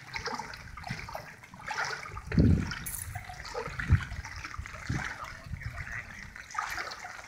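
Water sloshing and splashing as legs wade through knee-deep floodwater. A few dull low thumps come about two and a half, four and five seconds in, the loudest near four seconds.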